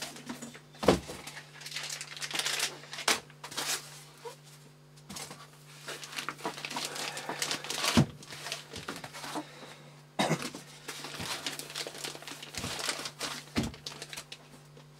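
Plastic bag crinkling and foam packing blocks rubbing as a new digital oscilloscope is unpacked, with a few sharp knocks as the foam and the instrument are handled on the bench.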